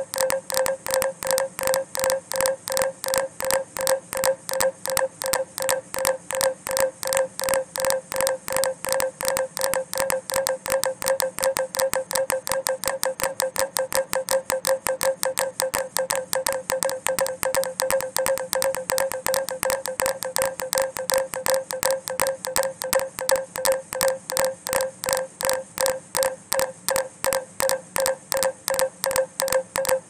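Minimal electronic score: a looping Snapchat snap played against itself, shifting in and out of phase, giving a fast, even pulsing of a short pitched tone.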